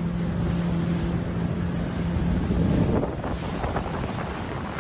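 A boat engine running with a steady low hum, under heavy wind buffeting the microphone and sea-water noise. The engine hum drops away about three seconds in, leaving wind and water.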